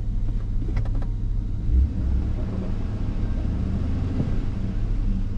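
2002 Chevrolet Silverado 1500's 4.8-litre V8 idling steadily, a low rumble, with a couple of faint clicks about a second in. The engine has a misfire, logged mostly on cylinder 6 on bank 2.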